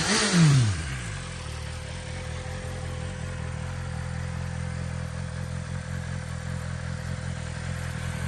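BMW S1000RR's inline-four engine through its stock exhaust: a throttle blip whose pitch falls back within the first second, then a steady idle.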